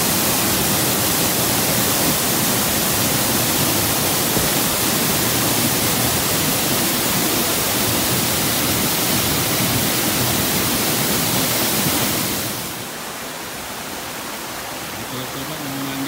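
Waterfall pouring into a rock pool: a loud, steady rush of falling water. Near the end it drops to the quieter rush of a stream running over rocks.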